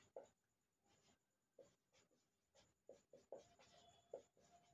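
Faint scratching and squeaking of a marker pen writing on a whiteboard, in short separate strokes that come closer together in the second half.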